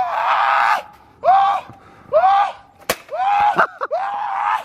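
A young man screaming in a string of about five short, high-pitched, rising-and-falling wails of distress. About three seconds in there is a single sharp crack of an impact.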